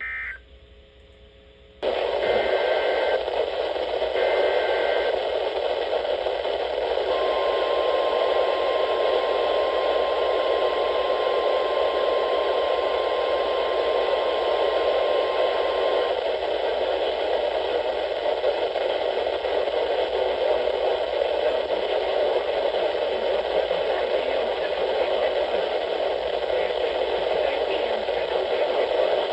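NOAA weather radio receiver hissing with loud static that switches on about two seconds in. Two short two-pitch SAME data bursts follow, then the steady single-pitch warning alarm tone for about nine seconds, which stops while the static runs on.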